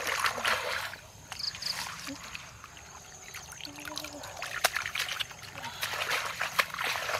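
Hands splashing and sloshing through shallow puddle water, with water trickling and dripping. The splashing is busiest at the start, eases off, then picks up again near the end.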